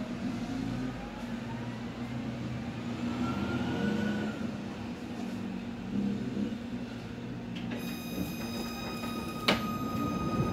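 Tatra-Yug K1M8 tram in motion, heard from the passenger saloon: a steady low rumble, with the traction drive's whine rising in pitch over the first few seconds as the tram picks up speed. Near the end a steady high-pitched tone sets in, and a single sharp click follows.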